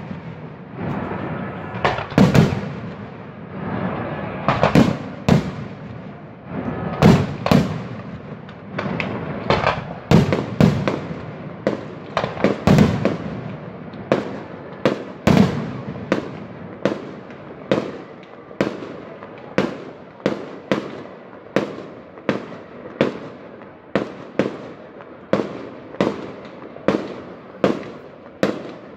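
Aerial fireworks display: shells bursting overhead in loud, echoing bangs with crackling between them. The first half is irregular, with some heavy clustered bursts. From about halfway through, the bangs come in a steady run of about one a second.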